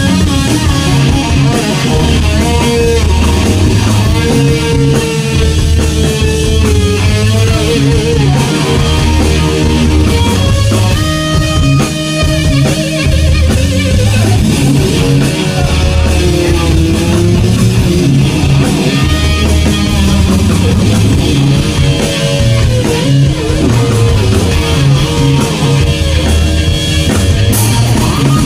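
Live rock music: an electric guitar lead playing long, sustained notes that bend and slide in pitch, over bass and drum kit.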